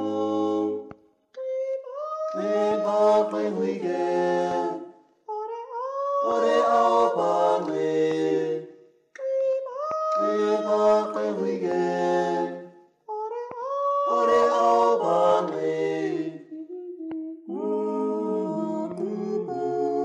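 A cappella vocal music: several voices sing together in harmony in long held phrases, each about three to four seconds, with short breaks between them.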